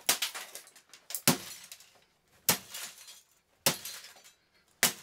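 Repeated blows smashing the wreckage of a Rank Arena 3-in-1 TV/radio/cassette player: five sharp impacts a little over a second apart, each with a crunch of breaking plastic and electronics.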